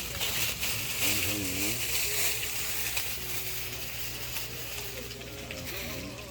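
Gopchang (intestines) sizzling as they grill over a wood-burning stove: a steady hiss with faint crackles.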